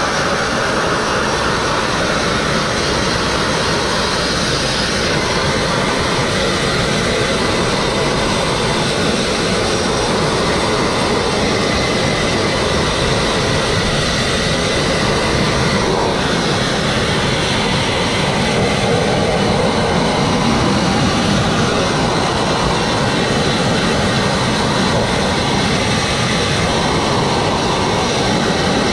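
Sandblasting nozzle blasting continuously: a loud, steady jet of compressed air and abrasive hissing against brick as it strips paint off.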